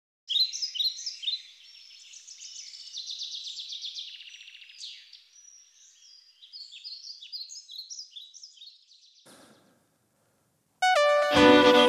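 Birdsong: repeated high chirps and a rapid trill from songbirds for about nine seconds. After a short pause, a fiddle starts playing loudly near the end.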